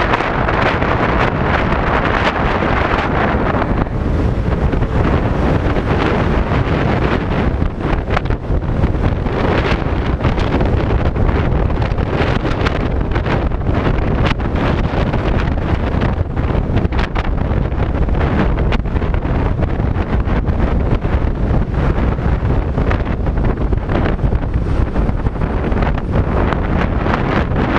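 Wind buffeting the microphone of a GoPro Hero 3+ on a scooter moving at road speed: a loud, steady rush with constant low flutter, masking the ride's other sounds.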